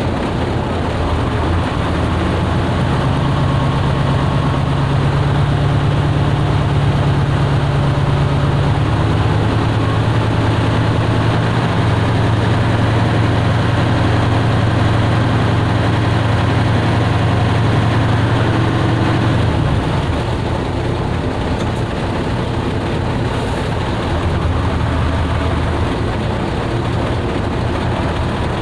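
Fishing boat's engine running steadily with a low hum, its pitch shifting a few times, around 3 s, 9 s and 20 s in.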